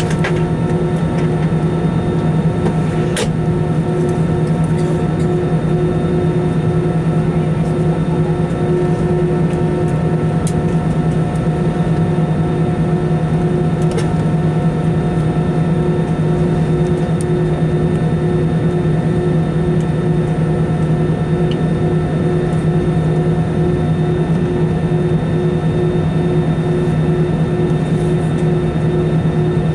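Steady cabin drone inside an Airbus A320 on the ground before takeoff: engines and air-conditioning running, heard as a constant low hum with a few steady tones above it and a faintly pulsing tone. A few faint clicks can be heard.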